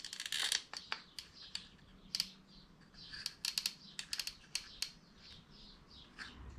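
Irregular light clicking from a hand caulking gun as its trigger is squeezed, running a bead of sealant around a differential bearing housing; the clicks come singly and in quick clusters.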